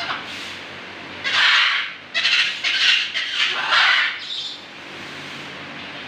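Parrots squawking: a string of about four loud, harsh squawks in quick succession, starting about a second in and lasting some three seconds.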